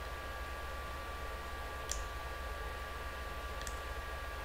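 Two clicks of a computer mouse's left button, a little under two seconds apart, over a steady hiss with a faint high electrical whine.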